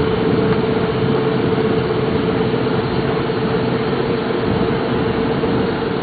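Heavy industrial machine running steadily: an even, loud noise with a constant hum underneath, with no strikes or changes.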